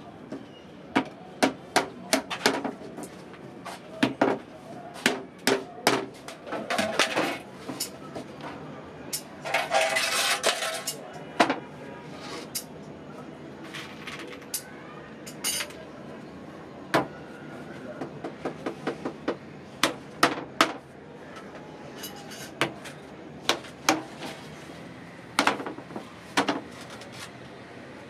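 Hammer striking nails into wood: irregular runs of sharp knocks with pauses between them.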